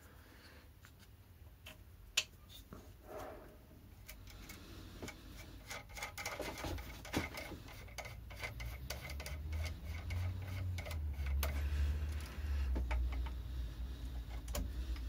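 Small metal parts clicking and tapping as a lathe's indexing attachment is fitted and adjusted by hand, with one sharper click about two seconds in. A low rumble builds from about six seconds in.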